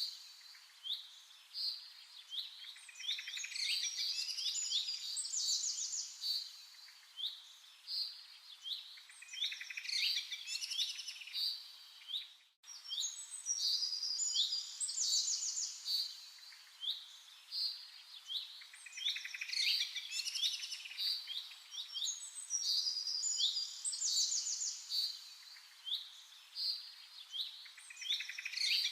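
Birds chirping and singing in quick, overlapping calls and trills. The sound drops out for a moment about halfway through and the same run of calls starts over, as in a looped birdsong recording.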